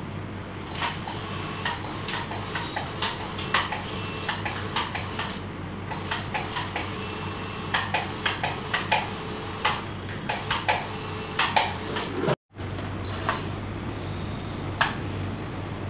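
Metal dental surgical instruments clicking and clinking many times in quick, irregular taps over a steady low hum of equipment. The sound cuts out completely for a moment about twelve seconds in.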